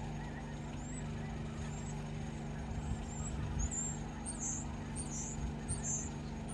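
Steady low engine hum with a low rumble underneath. Short high bird chirps come through it, three louder ones in the second half.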